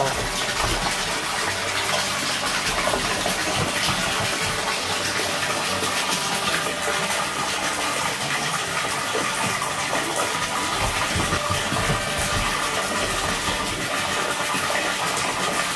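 Water pouring in a steady stream into a partly filled inflatable pool, a continuous rushing splash while the pool fills.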